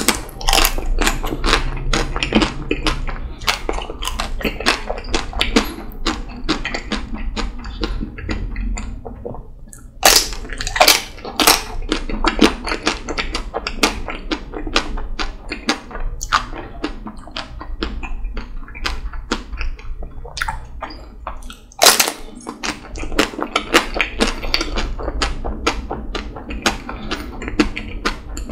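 Close-miked bites into the chocolate shell of a Magnum Double Raspberry ice cream bar, each snapping the shell, followed by continuous crackly chewing of the chocolate pieces. The sharpest bites come at the very start, about ten seconds in and about twenty-two seconds in.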